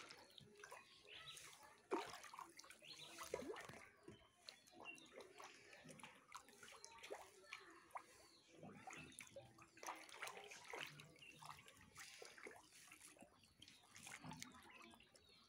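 Faint, scattered small splashes and pops of fish taking floating feed pellets at the water surface of a biofloc tank.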